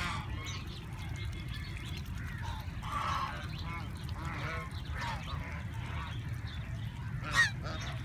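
Flock of white domestic geese honking, with scattered short calls throughout and one loud honk near the end.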